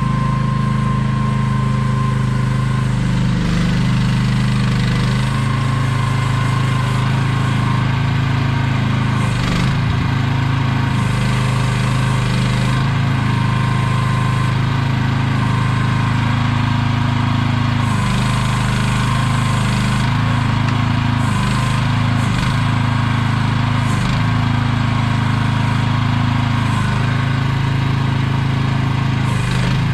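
AGT QH12R mini excavator's engine running steadily as the machine is worked, its pitch dipping and recovering slightly a few times, with occasional faint knocks.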